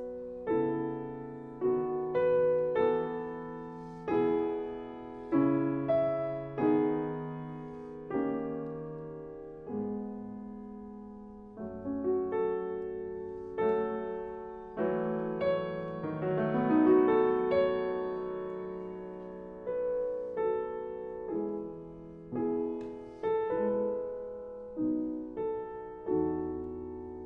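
Background piano music: slow chords and a melody, each note struck and left to fade.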